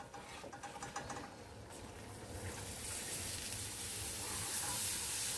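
Cold water poured into a pan of cornmeal roasted in hot butter, sizzling and hissing, while a wooden spoon stirs. The sizzle starts about two seconds in and grows steadily louder.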